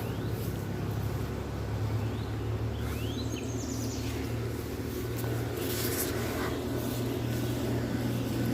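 Steady low engine hum of a vehicle, with a few short rising bird chirps about three seconds in.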